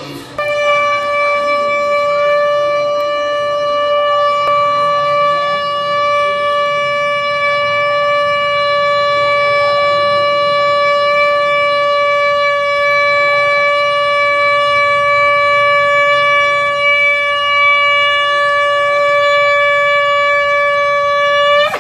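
A conch shell (shankh) blown in one long, loud, steady note for about twenty seconds, lifting slightly in pitch just as it breaks off.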